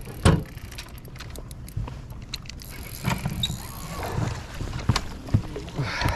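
A handful of irregular knocks and bumps inside a small fishing boat, over a steady low rumble and hiss.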